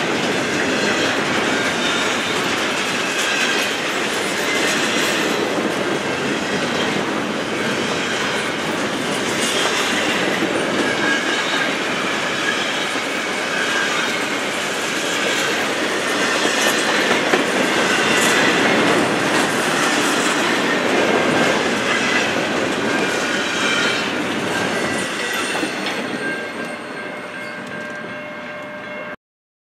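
Double-stack intermodal container cars rolling past at speed: a steady noise of wheels on rail with thin, high squeals from the wheels. It fades over the last few seconds as the end of the train goes by, then cuts off.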